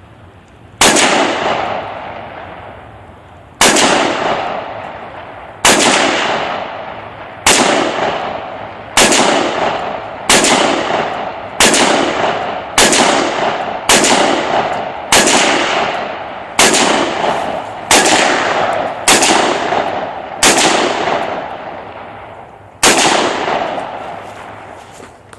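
AR-15 rifle fired in single shots, about fifteen loud reports, each echoing away over a second or so; the shots start about 3 s apart and come faster, roughly one every second and a quarter, through the middle, with a longer pause before the last one.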